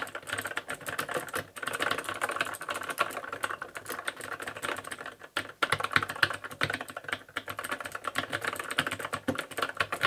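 Fast, hard typing on a cheap mechanical keyboard with Cherry-style switches: a dense clatter of key clicks, with short breaks about a second and a half in and a little after five seconds.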